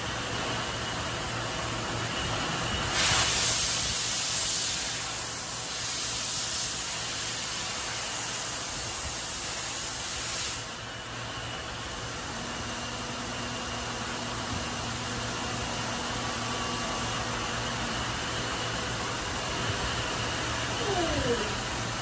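Star SB-16D CNC Swiss-type lathe running a cut with coolant spraying: a steady hiss of coolant over the machine's hum. The hiss gets louder about three seconds in and drops back about ten seconds in, and a brief falling whine comes near the end.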